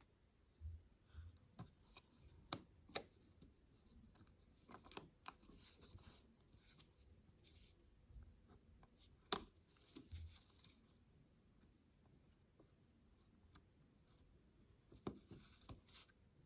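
Small plastic clicks and scratchy scraping from an arrow keycap of an Apple Magic Keyboard for iPad being worked off its clips and hinge mechanism, with three sharp snaps: two close together early on and a louder one about midway.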